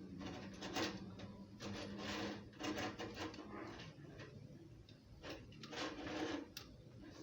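Faucet mounting hardware being handled: irregular clicks, scrapes and rattles of small metal and plastic parts, with a faint steady low hum under the first half.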